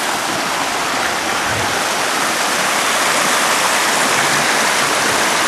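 Waterfall running steadily: an even rush of falling water that grows slightly louder toward the end.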